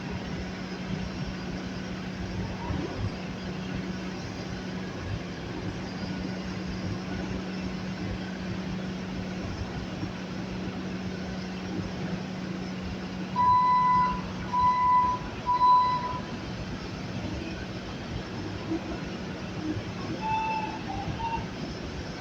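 Skid steer running with a steady engine hum, and three short, loud beeps of one pitch a little past the middle.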